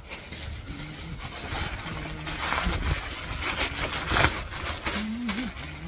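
Plastic mailer packaging rustling and crinkling as a parcel is handled, with denser crackling in the middle, over a low steady rumble.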